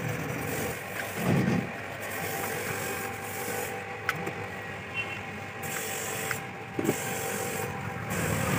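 Caulking gun squeezing windshield urethane adhesive from its cartridge along the car's windshield frame: a few short clicks from the gun over steady background noise, with a low thump about a second in.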